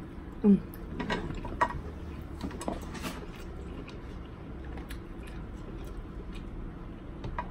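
Scattered sharp clicks and light cracks of crab shells and utensils being handled while eating, mostly in the first three seconds, over a low steady hum. A short vocal sound about half a second in.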